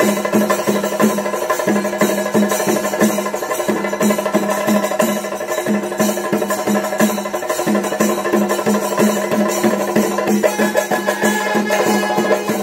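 Traditional Kerala temple percussion ensemble playing a fast, dense rhythm of drum strokes and sharp clicking strikes, over a low pitched tone that pulses with the beat.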